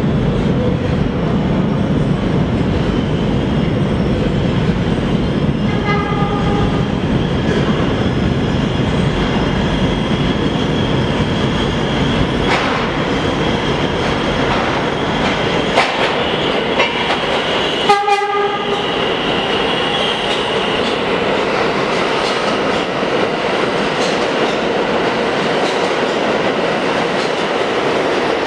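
A New York City Subway train of the R143/R160 type, running not in service, approaches through the tunnel and runs through the station without stopping, with a steady rumble of steel wheels on the rails. Its horn sounds briefly about six seconds in and again, louder, about eighteen seconds in.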